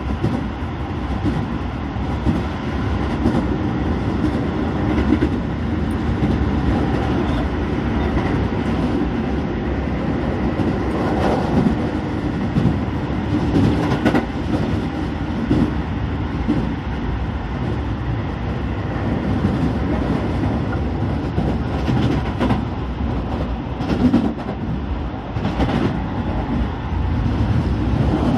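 Keio 9000 series electric train running, heard from inside the car: a steady rumble of wheels on rail, with a few clacks over rail joints.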